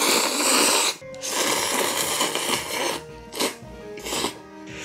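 A person slurping ramen noodles: two long slurps in the first three seconds, then two short quick sucks, over background music.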